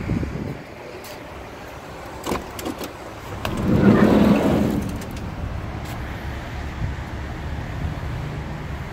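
Steady hum of vehicle traffic, with a few light clicks a little over two seconds in and a louder noisy swell lasting about a second and a half around the four-second mark.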